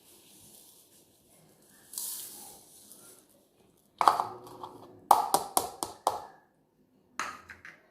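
Granulated sugar poured into a mixing bowl with a soft rustling hiss, followed by sharp knocks: one about four seconds in, a quick run of about five a second later, and two more near the end.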